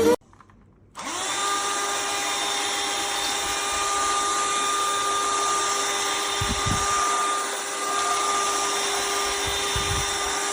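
Cordless handheld vacuum cleaner switched on about a second in: its motor spins up with a short rising whine, then runs steadily with a high whine and a hiss of rushing air.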